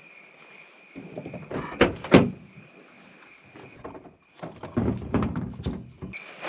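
Crickets trilling steadily, interrupted by clattering thuds and clunks with two sharp loud knocks about two seconds in, then another spell of clunks and rustling in the second half.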